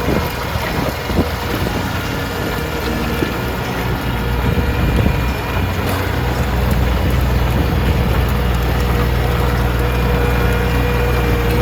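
Tractor engine running steadily while tilling a field, with a steady whine over the low engine hum.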